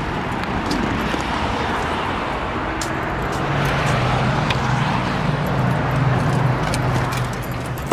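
Steady outdoor road-traffic noise and rumble, with a low engine hum joining about halfway through. A thump at the very end as a car door shuts, and the noise drops away.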